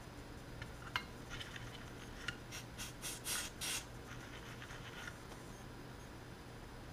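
Small handling sounds of tools and multimeter test leads being set down on a towel-covered bench: a sharp click about a second in, a few brief rubbing swishes near the middle, then light ticks.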